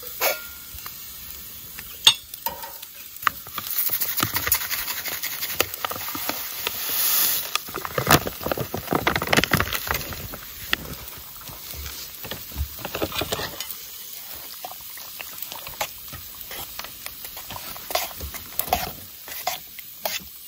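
A spoon stirring and scraping in a small camp pot, likely mixing instant mashed potatoes into just-boiled water, with irregular clinks and scrapes. A brief hiss swells about seven seconds in.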